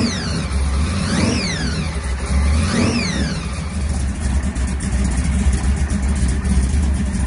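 Supercharged V8 engine of a Plymouth GTX muscle car running at idle. It is revved in three quick blips in the first three seconds, then idles on steadily.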